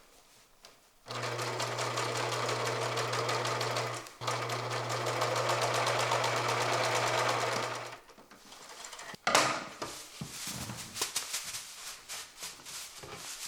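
Electric sewing machine stitching burlap, running in two stretches with a steady motor hum and rapid needle clatter, pausing briefly about 4 s in and stopping about 8 s in. A sharp knock and irregular rustling handling sounds follow.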